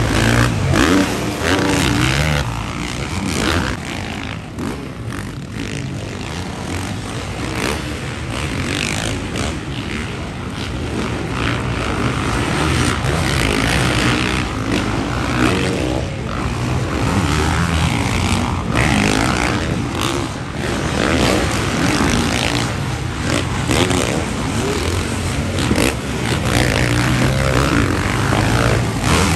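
Several supercross dirt bikes running on the track, their engines revving up and easing off, rising and falling in loudness.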